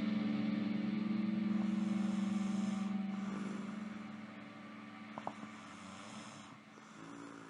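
An electric guitar note, a Killer Guitars KG-Prime played through a Line 6 POD HD500, sustains steadily and then fades away starting about three seconds in. A sleeping woman's snoring breaths come and go faintly beneath it, with a short click about five seconds in.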